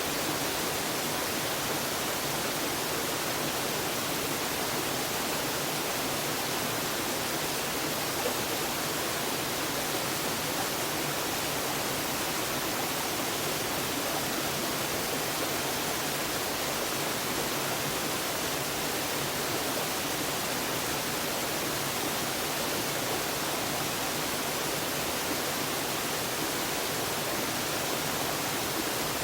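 Small waterfall pouring steadily: an even, unbroken rush of falling water.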